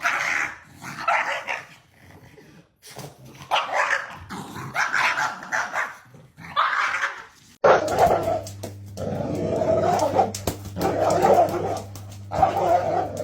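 Dogs barking, yipping and whining in repeated bursts. About two-thirds of the way through the sound changes abruptly to lower-pitched vocalizing over a steady low hum.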